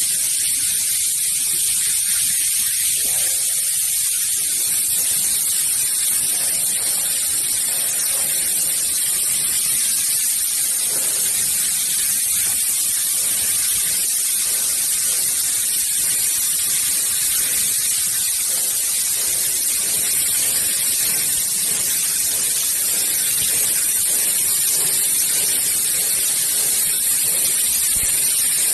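Plasma torch of a portable CNC plasma cutter cutting through metal plate: a steady, loud, high-pitched hiss.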